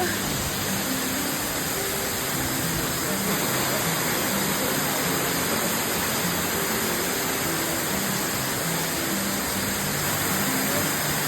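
Amicalola Falls waterfall: a steady, even rush of falling water.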